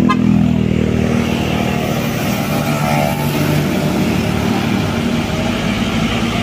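Road traffic passing close by, engines running. At the start, one vehicle's engine note drops in pitch as it goes past.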